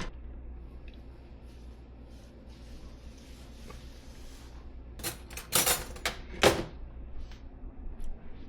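Kitchenware being handled while a plate of lasagna is served: a few sharp knocks and scrapes, loudest between about five and six and a half seconds in, then a few light clicks, over a low steady hum.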